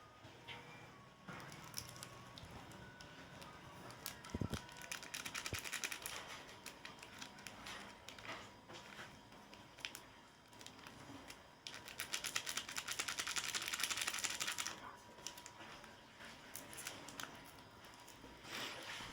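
Crinkling and crackling of chocolate and snack wrappers being handled: two long stretches of dense crackling, with scattered clicks and rustles between.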